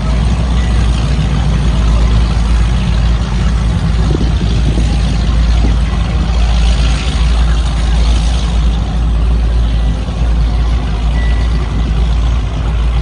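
Large engines rumbling steadily at low speed, a deep continuous drone with no clear changes in pitch.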